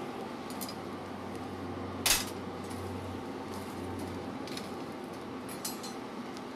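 Iron bars and tongs clinking against each other on a coal forge hearth as the fire is worked, with one sharp clank about two seconds in and a few lighter clinks, over the steady rush of the forge fire.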